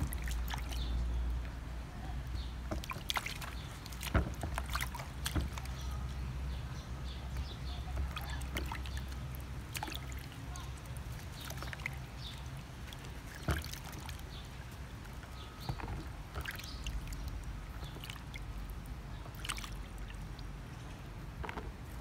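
Hands washing green mangoes, red onions and chillies in a plastic basin of water: irregular sloshing and splashing, with small drips and knocks, over a steady low rumble.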